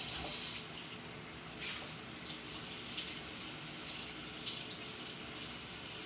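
Kitchen faucet running, hot water splashing into the sink as a dish is rinsed and washed; the rush of water quietens about half a second in, with a few light knocks.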